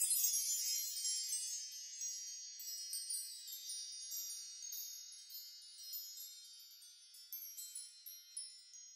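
Faint, high tinkling chimes: many bell-like notes ringing and overlapping, thinning out and fading away toward the end.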